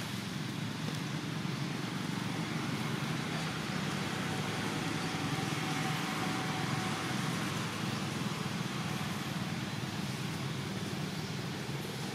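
Steady low rumble of motor traffic in the background, unchanging throughout, with a faint brief hum partway through.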